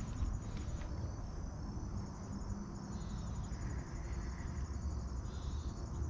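Crickets chirping in a high, steady, fast-pulsing trill over a constant low rumble.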